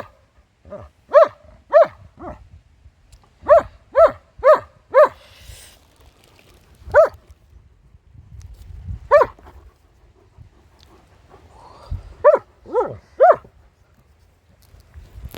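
A dog barking repeatedly: short, fairly high-pitched barks in runs of two to four, with pauses of a second or two between runs.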